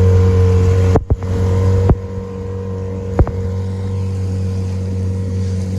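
Small motorboat's engine running with a steady low hum. It gets quieter after about a second, and a few sharp clicks or knocks come about one, two and three seconds in.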